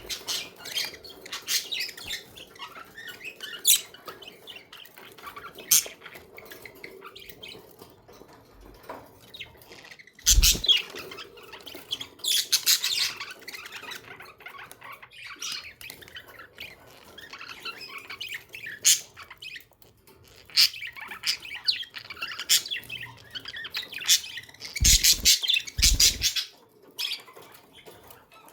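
A group of budgerigars chirping and chattering in quick, irregular bursts, with busier spells near the middle and near the end. A few dull thuds come with the busiest bursts.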